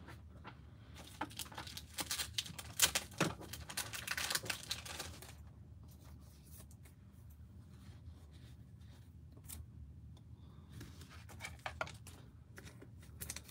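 Trading card packaging being torn open by hand: a few seconds of tearing and crinkling, then quieter rustles and light taps.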